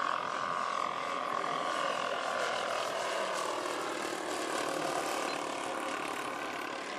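Twin propeller engines of a quarter-scale Beechcraft 18 radio-controlled model airplane running at flying speed, a steady drone whose pitch drops partway through as the plane passes overhead.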